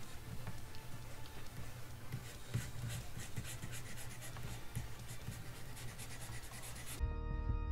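A scratchy, hissing rustle with many small irregular clicks. About seven seconds in it cuts off suddenly and music with steady held tones takes over.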